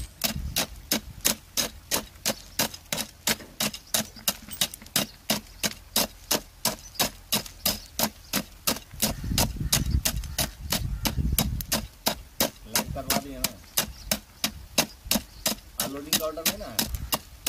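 Steel tamping rod being driven repeatedly into coarse aggregate in a metal cylindrical measure: stones clinking about three times a second, evenly paced, as a layer is rodded to compact it for the bulk density test.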